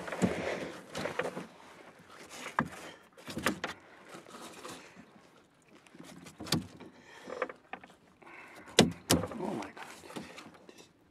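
Handling noise with sharp knocks and thuds on a plastic kayak hull as a freshly caught white bass is held down on the deck and unhooked: about five knocks, two of them close together near the end.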